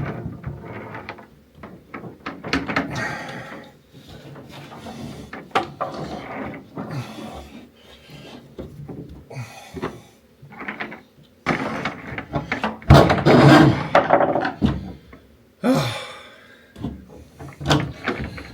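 Irregular knocks, rubbing and scraping of wiring and air line being worked and pulled through a hole in the truck body. The loudest is a longer run of scraping a little past the middle.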